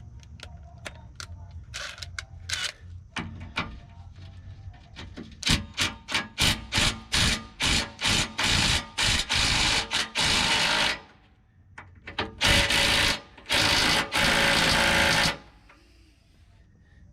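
Power impact wrench with an 18 mm socket on the rusted skid plate bolts. It starts with short rattling bursts that lengthen into longer hammering runs, then after a pause gives two more long runs.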